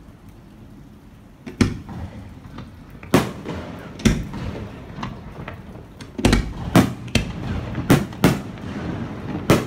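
Fireworks going off: about eight sharp bangs of bursting shells, starting about a second and a half in and coming closer together toward the end, with crackling in between.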